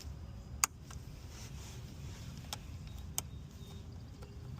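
Three short, sharp clicks of plastic parts and tools being handled in an engine bay while connectors and clips are worked loose. The loudest comes about half a second in, then two more near the middle, over a steady low background rumble.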